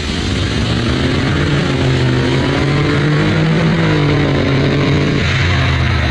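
Honda Integra's parallel-twin engine pulling hard under acceleration, its pitch climbing, with an abrupt change in tone about five seconds in.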